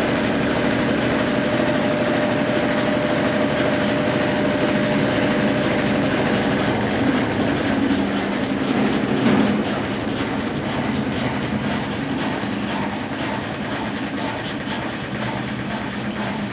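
Consul Facilite 10 kg top-loading washing machine running with a load of clothes: the motor and drum make a steady, continuous noise. A brief louder moment comes a little past halfway, after which the sound eases slightly.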